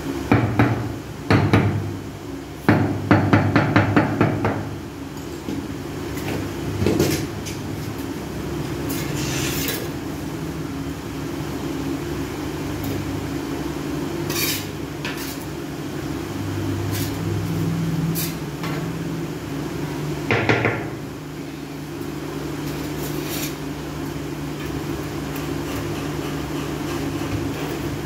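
Quick tapping of a hand tool on a ceramic floor tile as the tile is bedded into mortar, in two short runs in the first few seconds, then a few single knocks and scrapes.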